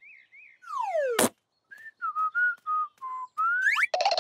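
Cartoon sound effects and whistling. A falling slide-whistle glide ends in a sharp thud about a second in. Then a character whistles a short, jaunty tune of quick notes, like an innocent whistle, and it ends in a rising glide. A noisy rush comes right at the end.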